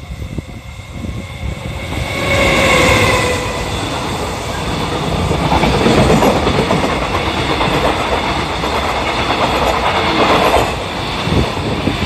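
EF210 electric locomotive hauling a long container freight train passing close by: wheels clacking over the rail joints under a continuous rush of passing wagons. A short held pitched tone sounds about two seconds in as the train comes up.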